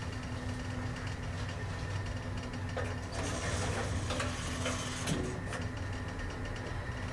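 A 1954 Otis geared traction elevator car in motion, with a steady hum. From about three to five seconds in comes a stretch of rattling with several sharp clicks.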